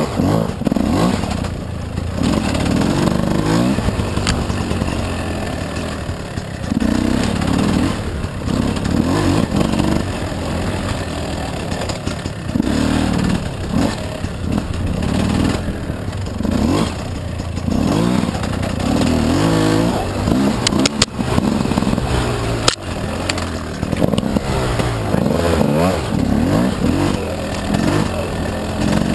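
Gas Gas dirt bike engine revving up and falling back again and again as it is ridden along a rough trail, with clatter from the bike. A few sharp knocks come about two-thirds of the way through.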